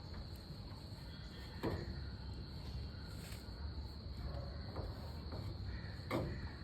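Steady high-pitched insect trill, typical of a cricket, over low background rumble, with a dull thud about two seconds in and another near the end.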